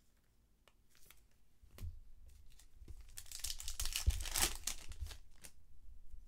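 A 2020 Bowman 1st Edition trading-card pack wrapper torn open and crinkled by hand, loudest about four seconds in. A few light clicks of cards being handled come before it.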